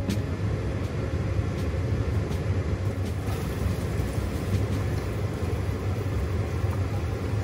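Asam pedas spice paste frying in oil in a non-stick wok, with a wooden spoon stirring and scraping it, over a steady low rumble. A few faint light taps come from the spoon against the pan in the first few seconds.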